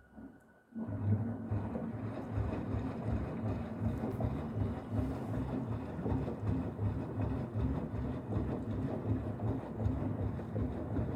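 Beko washing machine making a steady, fluttering low rumble that starts suddenly about a second in, the kettle-like sound the machine is known for.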